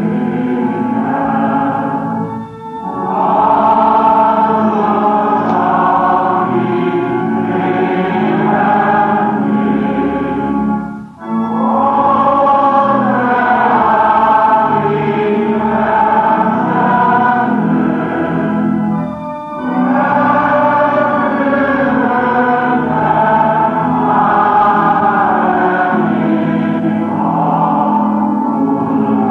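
A choir singing a slow hymn in long phrases of about eight seconds, with brief breaths between them.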